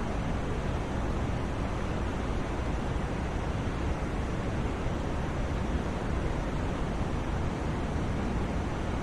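Steady white noise of the kind made for sleep: a continuous, even hiss, heavier in the low end, that does not change.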